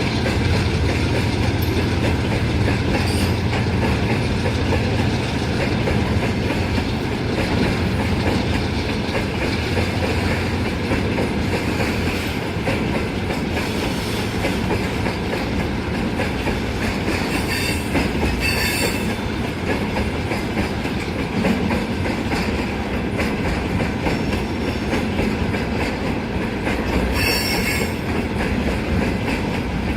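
Freight train of ammonia tank cars rolling steadily on the rails, with a continuous rumble and clatter of wheels. Twice, a short high wheel squeal stands out, about two-thirds of the way in and again near the end.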